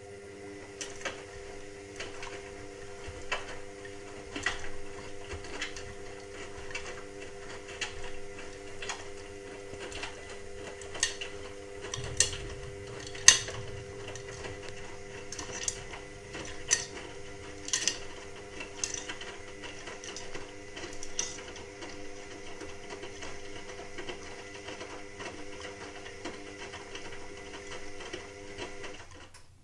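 Indesit WIXL143 washing machine running with a steady motor hum and sharp clicks about once a second. The hum stops suddenly near the end. This clicking comes with the fault that stops the machine finishing its cycle, with the door-lock light flashing; its cause is unknown.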